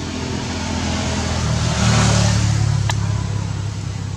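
A motor vehicle driving past, its engine hum growing louder to a peak about two seconds in and then fading.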